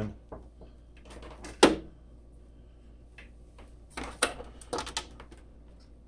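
Power cable being handled and plugged into the back of a desktop computer: a sharp plastic click about a second and a half in, then a cluster of smaller clicks and rattles around four to five seconds in.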